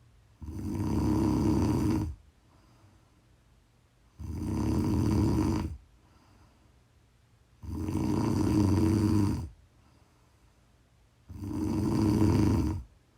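Snoring: four long snores at an even pace, about one every three and a half to four seconds, each lasting one and a half to two seconds, with near-quiet pauses between them.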